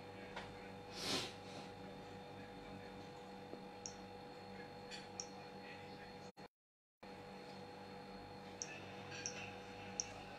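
Faint, steady electrical hum with a few light clicks and one short rushing whoosh about a second in; the sound cuts out completely for about half a second past the middle.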